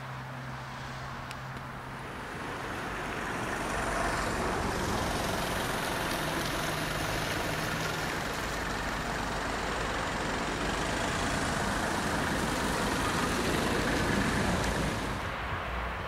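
Road vehicle passing, its engine and tyre noise building over several seconds and then dropping off suddenly near the end.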